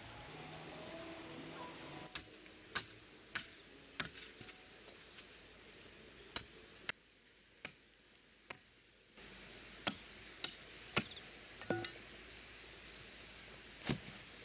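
A series of sharp, irregular knocks and clicks, roughly one or two a second, over a faint steady hiss.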